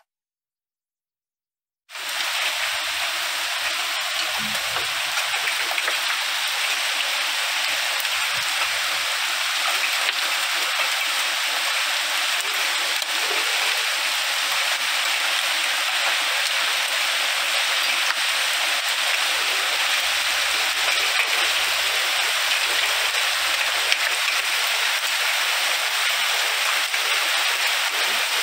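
Heavy rain pouring down steadily on trees and grass, a dense, even hiss that starts abruptly about two seconds in.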